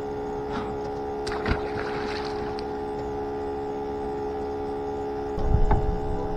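Bait tank pump giving a steady whine, several steady tones at once. A few light clicks come about one to two seconds in, and a low rumble starts near the end.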